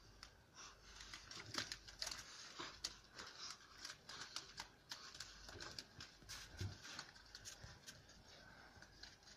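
Faint, irregular crunching and scuffling from Central Asian Shepherd puppies fighting and dogs moving over crusty old snow and thawed ground, with many short sharp clicks.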